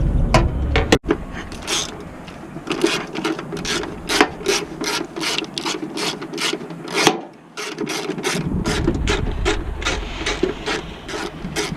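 Hand socket ratchet clicking in quick, even strokes as a 10 mm bolt is worked loose, with a short pause about seven seconds in.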